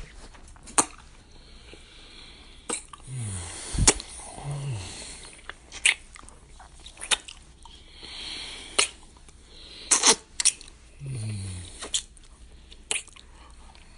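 Close-up kissing: wet lip smacks, about ten at irregular gaps, with breathy exhales and a few short low hums that fall in pitch.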